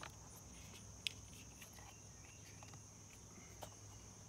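Faint, steady high-pitched chirring of crickets, with a few light clicks of parts being handled, the sharpest about a second in.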